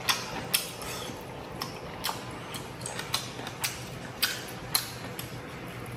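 A man eating at the table: a string of short, sharp clicks, roughly two a second, from chewing and chopsticks working in the pot and bowl, over a faint steady hum.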